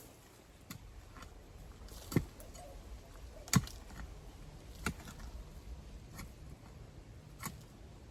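Repeated sharp chopping strikes, roughly one every second or so and unevenly spaced, from a hand tool cutting down spent corn stalks.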